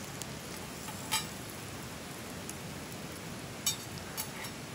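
Steady sizzling hiss of beef tongue and a fried egg frying in a skillet over a wood fire. A few short metallic clicks and clinks, about a second in and again near the end, as a metal lid is set on the pan and settled with tongs.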